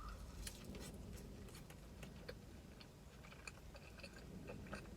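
Soft, irregular wet mouth clicks and smacks of someone chewing BBQ-sauced rib bites close to the microphone.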